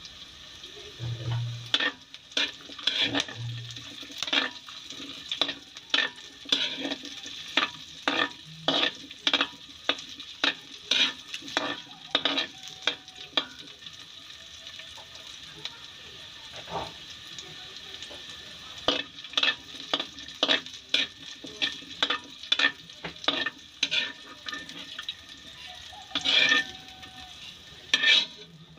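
Metal spatula scraping and knocking against a wok as cubed vegetables fry in hot oil, over a steady sizzle. The strokes come about one every half second to second and thin out for a few seconds midway.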